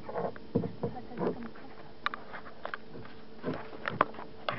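Irregular knocks and wet rustling of hands pulling weed off a hooked fish at the side of a boat, starting with a sharp thump.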